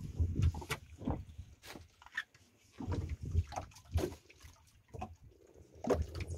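Small waves lapping and slapping irregularly against the hull of a small fibreglass boat drifting with its outboard off.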